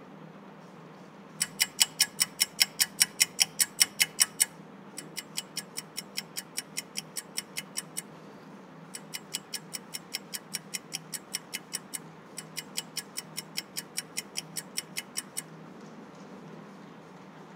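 Fast, even ticking, about six or seven ticks a second, in four runs of about three seconds each with short breaks between; the first run is the loudest. A faint low hum lies underneath.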